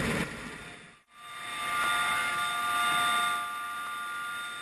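Rescue helicopter running, with steady high whining tones over its noise. The sound cuts out briefly about a second in, then comes back.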